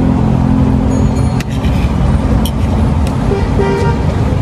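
Road traffic rumbling steadily, with a short vehicle horn toot a little after three and a half seconds in. A few light clicks of a metal spoon and fork against a plate sound over it.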